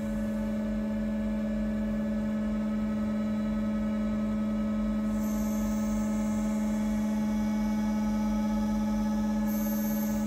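Four-roll CNC plate bending machine running with a steady, even hum. A higher hiss joins it from about five seconds in until about nine seconds, and returns near the end.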